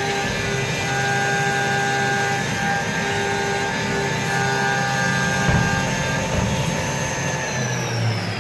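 CNC vertical machining centre milling a part: a steady, high spindle whine with several held tones over the noise of the cut. Near the end the whine falls steadily in pitch as the spindle slows down.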